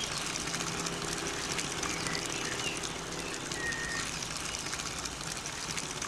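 Steady outdoor ambience: an even rushing hiss with a few faint bird chirps in the middle.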